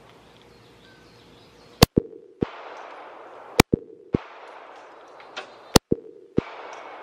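Three shots from a SCCY CPX-3 .380 ACP semi-automatic pistol, evenly spaced about two seconds apart with the first about two seconds in. Each shot is followed by one or two fainter sharp knocks.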